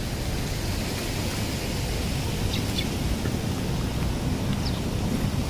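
Wind buffeting the microphone: a steady, fluctuating low rumble with a hiss over it.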